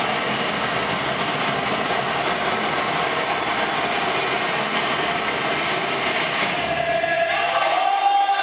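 Loud, steady crowd din in a hall, with rising pitched voices joining over it near the end.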